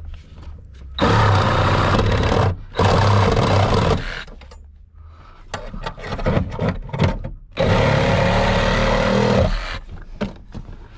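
A handheld power tool cutting in three bursts of about a second and a half each, with scraping and clatter between the cuts.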